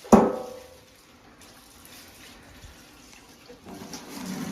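A sharp clank that rings briefly, then hot water from a hose pipe running into a bucket, the rush swelling over the last second.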